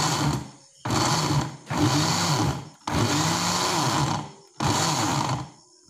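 Electric mixer grinder (mixie) with a small steel jar grinding jaggery, grated coconut and roasted rice flour, run in short pulses: about five runs of roughly a second each, the motor's pitch rising as it spins up and falling as it slows between pulses.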